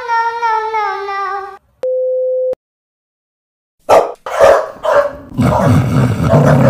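Music ending, then a short steady electronic beep. After a silent pause, a corgi barks: three sharp barks about half a second apart, then a longer noisy stretch of barking.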